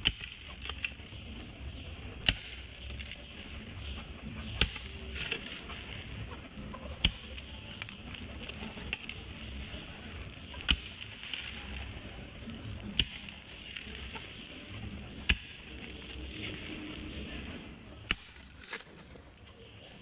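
Hand hoe chopping into soil: eight sharp strikes, one every two to three seconds, over a steady high buzz.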